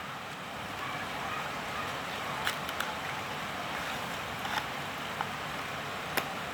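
Several short, sharp clicks and taps of product packaging being handled and opened, over a steady background hiss.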